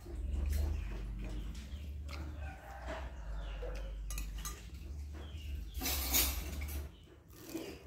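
A metal spoon scrapes and taps on a ceramic plate of rice and fried food while eating, over a low steady rumble. A short rustling burst about six seconds in is the loudest moment.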